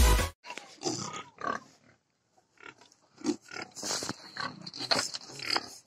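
A domestic pig grunting in a run of short, irregular grunts with pauses between them. A burst of electronic intro music cuts off at the very start.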